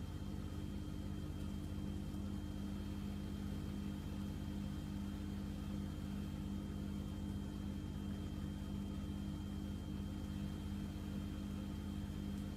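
Steady low background hum with a faint thin high tone above it, unchanging throughout.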